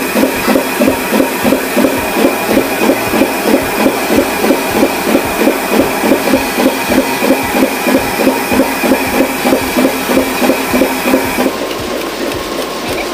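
Banknote printing press running, a rhythmic mechanical beat of about three to four strokes a second over a steady high whine. About eleven and a half seconds in it changes to a steadier machine hum with a lower tone.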